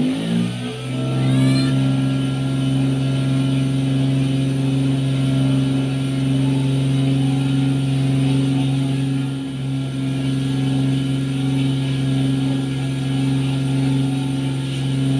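Cotton candy machine's spinner motor coming up to speed over about the first second, then running with a steady hum.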